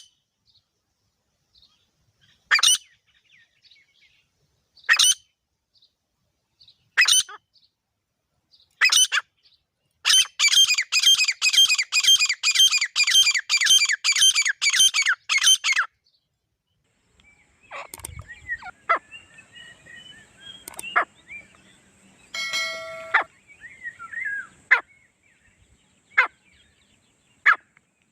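Grey francolins calling: loud single calls about every two seconds, then a fast run of repeated notes lasting about six seconds. After that come fainter, scattered calls over background noise, with a brief honk a little past the middle.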